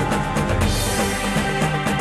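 TV programme's closing theme music with a fast, steady beat.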